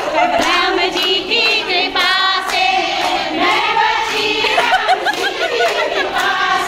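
A group of women singing together, with hand clapping along to the song.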